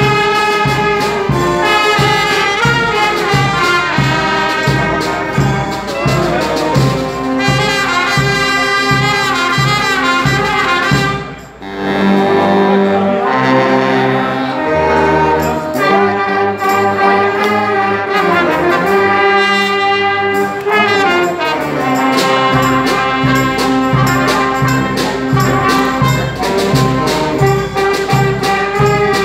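Brass band of trumpets, trombone, saxophones and sousaphone playing a lively tune over a steady beat. About 11 seconds in the music breaks off briefly, the horns carry on with held chords and little beat for several seconds, then the full rhythm comes back in.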